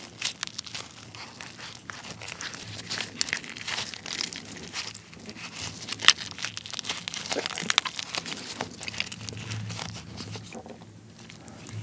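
A soy-sauce-marinated raw blue crab (ganjang gejang) being squeezed and broken apart by gloved hands to press the meat out: many small irregular cracks and crackles of thin shell, with one louder snap about six seconds in.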